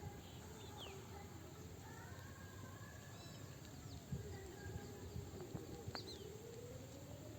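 Faint outdoor ambience with a few short bird chirps, one of them a little before the end, over faint wavering background sounds.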